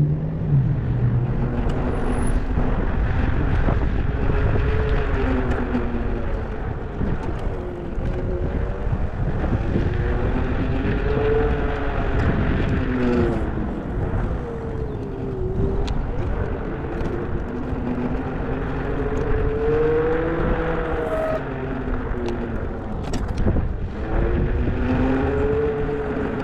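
Car on the road with steady road rumble, its engine note rising and falling again and again as it speeds up and slows down.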